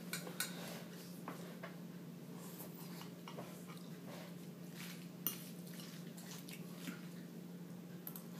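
Metal fork tapping and scraping in a ceramic bowl of macaroni and cheese: a scattering of light clicks, the sharpest about five seconds in, over a faint steady hum.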